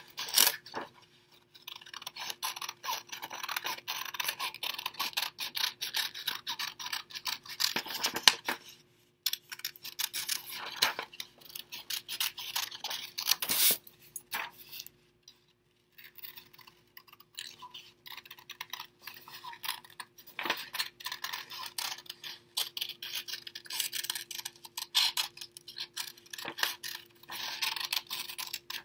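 Scissors snipping through construction paper, with the paper rustling and crinkling as it is turned and handled. The scratchy cutting runs on in long stretches, broken by a couple of short pauses near the middle.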